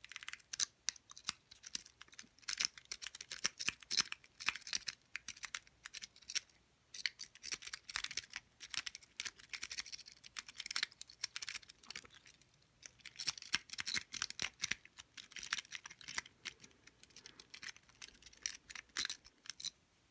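A pagoda rake being raked in and out of a Master Lock padlock's keyway under tension, making rapid metallic clicking and scraping over the pins. It comes in dense bursts with brief pauses about six and twelve seconds in.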